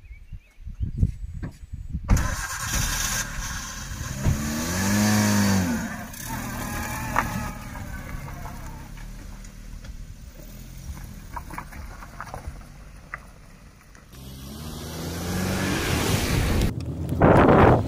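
A vehicle engine starting and revving, its pitch rising and then falling. A loud rush of wind on the microphone comes near the end.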